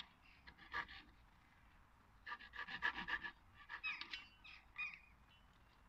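Handsaw laid flat on a bench, flush-cutting the head off an oak dowel peg in short rasping strokes: one stroke just under a second in, a quick run of strokes about two seconds in, then two shorter bursts.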